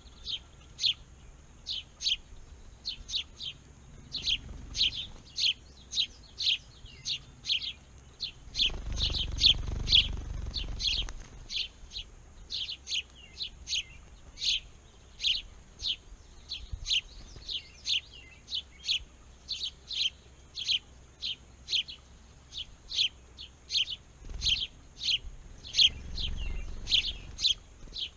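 Small birds chirping continuously, a steady series of short high chirps about two a second. A low rumble comes up about nine seconds in and again near the end.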